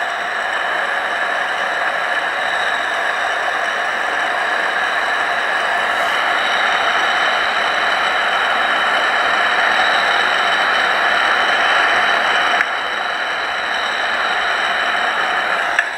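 Steady electronic hiss from an EVP voice recorder, with several thin high whining tones laid over it and no voice to be made out. The level drops suddenly about three-quarters of the way through.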